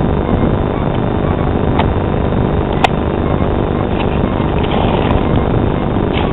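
Loud, steady low rumbling noise, with a sharp click about three seconds in and small knocks near the end as the camera tripod is handled.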